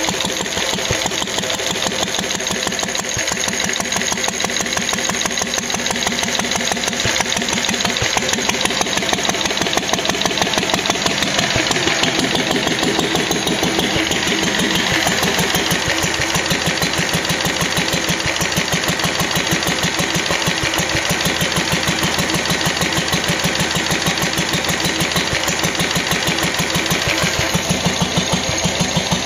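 1945 Lister D single-cylinder petrol stationary engine, a reverse-rotation example, running steadily with an even, rapid beat of firing strokes.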